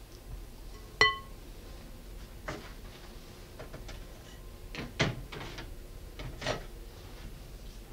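A silicone spatula working stiff scone dough in a glass mixing bowl. About a second in the bowl gives one sharp, ringing clink, and a few dull knocks and scrapes of the spatula and dough against the glass follow.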